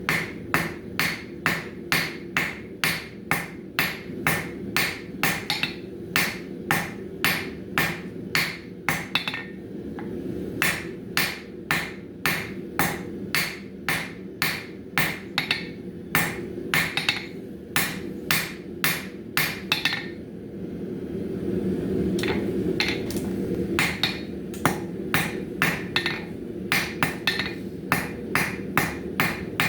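Hand hammer forging a bar of 1075 high-carbon steel on an anvil, ringing blows at about two to three a second over a steady low rushing noise. The hammering stops for a few seconds about two-thirds in, then resumes.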